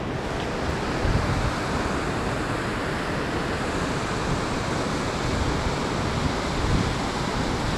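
Wind buffeting the action camera's microphone: a steady rushing noise with an uneven, gusty rumble underneath.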